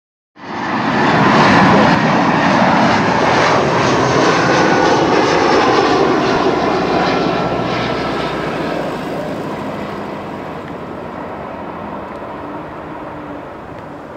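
Airbus A320-214 airliner's CFM56 turbofan engines running at approach power as it passes low on final approach. The sound is loudest about a second or two in, then fades steadily as the jet moves away toward touchdown.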